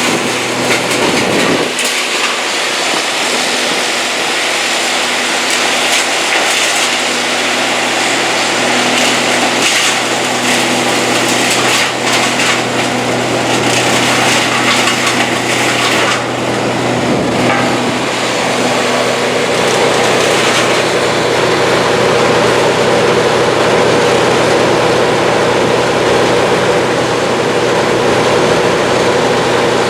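An engine running steadily with a constant hum under a noisy rush; the higher hiss eases off about sixteen seconds in.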